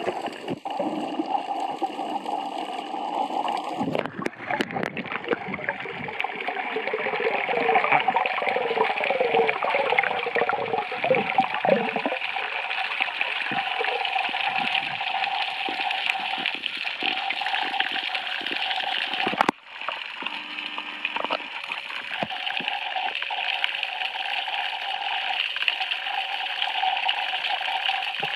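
Underwater water noise: a steady hiss and gurgle with fine crackling, changing abruptly twice.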